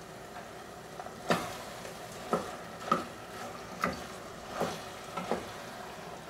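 A spoon stirring peas in a cooking pan on the stove, clinking sharply against the pan about six or seven times over a steady low sizzle.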